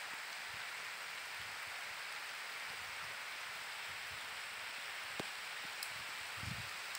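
Rain falling steadily: an even hiss, with a couple of faint ticks about five seconds in.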